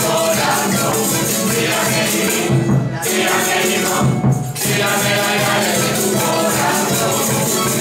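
Live folk music from a Canarian parranda group, with a steady shaken-percussion rattle over the pitched parts; the rattle drops out briefly twice near the middle.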